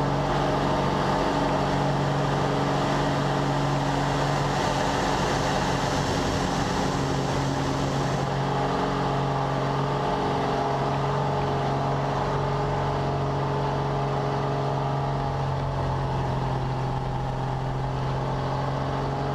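Slick 540 aerobatic aircraft's six-cylinder Lycoming engine and propeller droning steadily, heard from inside the cockpit with a haze of wind noise.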